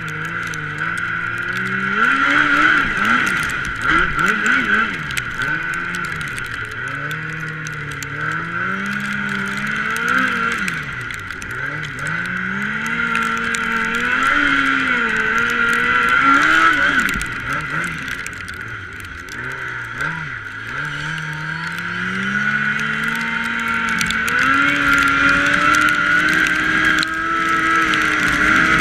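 2006 Yamaha Apex snowmobile's four-cylinder four-stroke engine revving up and down over and over as the throttle is worked, then climbing to a higher, steadier pitch near the end, with a steady high whine alongside.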